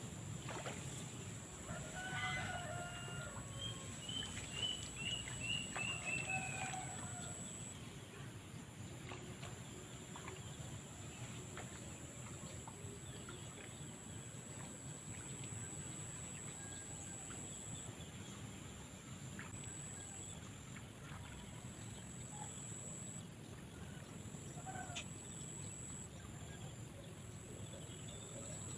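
A rooster crowing once, a few seconds in, over a steady high-pitched whine and low outdoor background noise.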